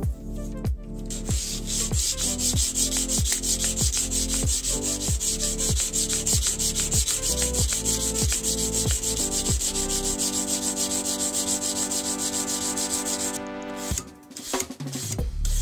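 Wet sandpaper rubbed back and forth by hand along a steel knife blade in quick, even strokes. The high rasping stops near the end. Electronic background music with a steady kick-drum beat plays under it.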